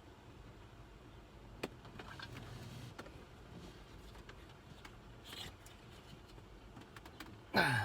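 Faint clicks and rustling of hands straining to twist a BMW E90 blower motor out of its plastic housing, with one sharp click about a second and a half in. Just before the end comes a short, loud sound that falls in pitch.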